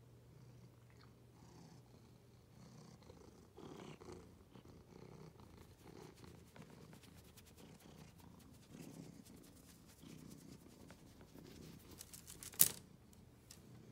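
Domestic cat purring in slow waves, faint and low. A single sharp click stands out near the end.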